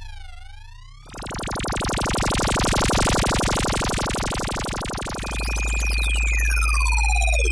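FM synthesizer sound effects in succession. A siren-like sweeping tone fades out, then about a second in a dense buzzing tone starts and holds for about four seconds. Near the end a deep steady drone takes over, with a steady high tone and a sweep that falls in pitch.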